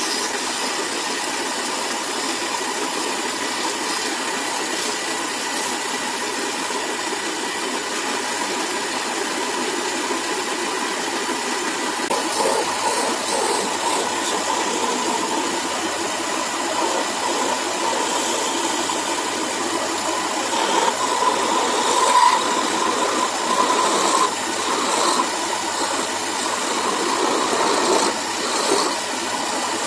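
Wood lathe running with a steady motor hum. From about twelve seconds in, a chisel cuts the spinning wooden spindle with uneven scraping and scratching, a little louder in places.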